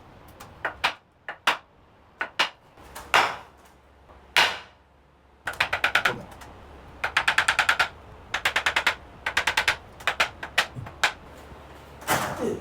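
Hands striking the body in quick percussive massage: single sharp slaps, then several rapid trains of slaps at about ten a second in the second half.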